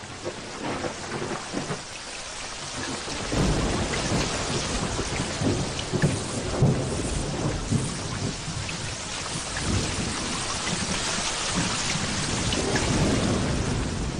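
Thunderstorm: heavy rain hissing and growing louder over the first few seconds, with low rolling thunder rumbling from about three seconds in.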